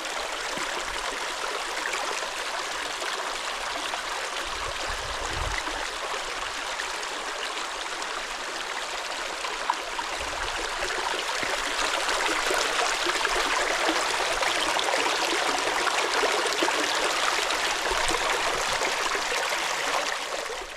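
Mountain valley stream rushing over rocks, a steady hiss of running water that grows somewhat louder about halfway through.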